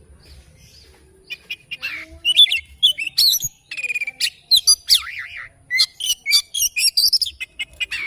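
Oriental magpie-robin (kacer) singing a fast, varied run of chirps, whistled glides and harsh notes, starting about a second in.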